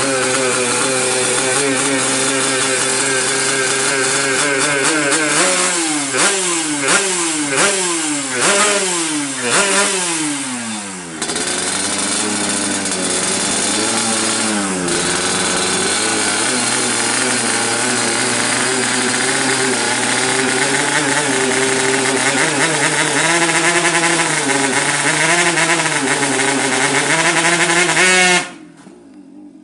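Yamaha RX-King's two-stroke single-cylinder engine running, then revved in a run of quick throttle blips, each rising and falling in pitch. It settles back to steady running, wavers up and down in pitch, and is cut off abruptly shortly before the end.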